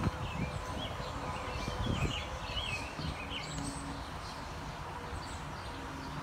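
Small birds chirping in quick, short notes that stop about three and a half seconds in, over a steady low rumble.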